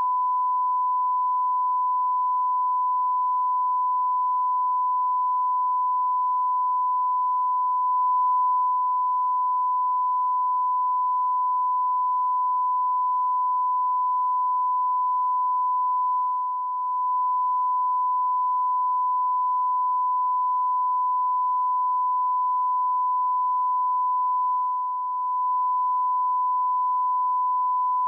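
Broadcast line-up test tone: a single pure, unbroken sine tone at about 1 kHz, held at a constant level.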